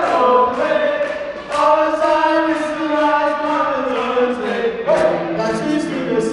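A group of young men singing together a cappella into microphones, holding long sung notes, with new phrases starting about a second and a half in and again near five seconds.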